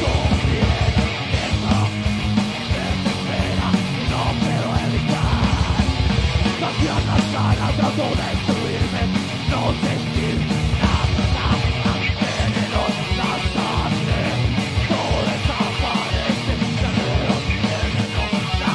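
Live heavy metal band playing loud: rapid drumming on a full drum kit under distorted electric guitars, with yelled vocals at times.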